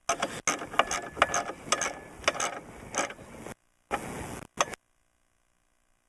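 Socket ratchet wrench clicking as it tightens a bolt: a quick run of ratcheting strokes for about three and a half seconds, then two short bursts before it stops.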